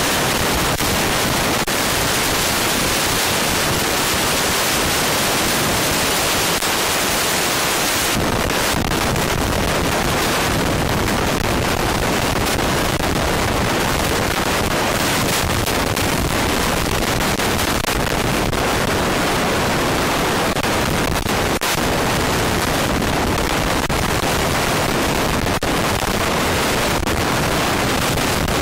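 A large forklift running while it moves a boat on its forks, heard as a loud, steady rushing noise with no clear engine note. About eight seconds in, the noise grows deeper.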